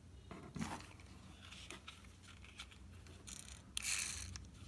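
Handling noise of a small plastic toy helicopter: irregular clicks and scrapes as it is picked up off a hard surface and turned in the hands, loudest a little before the end.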